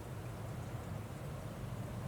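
Strong wind blowing: a steady low rumble with an even rushing hiss above it.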